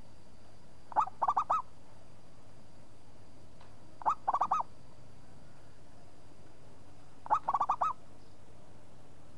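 Zebra dove singing its cooing song three times, about three seconds apart. Each phrase is a short opening note followed by a quick rolling run of about four coos.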